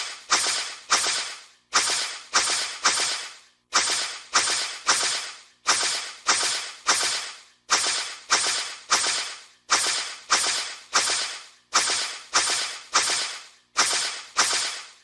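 Sound-effect swishes: fast whip-like whooshes, each starting sharply and fading quickly, in quick groups of three that repeat about every two seconds.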